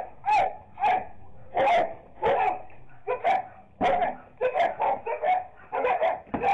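Small dog barking in a quick string of sharp, yappy barks, about two a second, with a brief lull about three seconds in. It is alarm barking at a stranger at the door.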